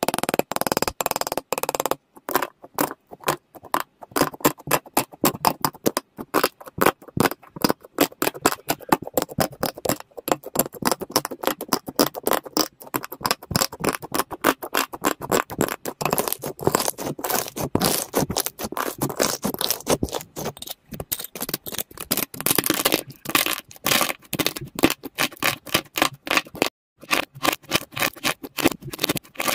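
Slime being squished and pulled by hand, giving a dense run of sticky pops, clicks and crackles with a brief pause near the end.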